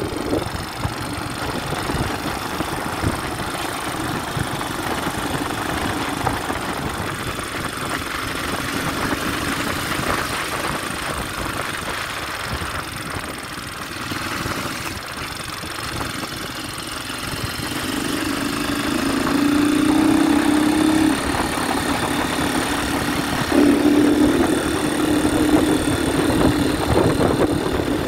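Small vehicle engine running while riding along a road, with steady wind and road rush. About two-thirds of the way in, a louder steady engine drone comes in. It drops away briefly once, then returns.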